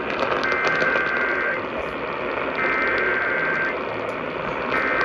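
Three Emergency Alert System SAME header bursts, the two-tone digital data sound each lasting about a second with a second's gap between, over a steady hiss of radio static. They are the coded header that opens an EAS alert message.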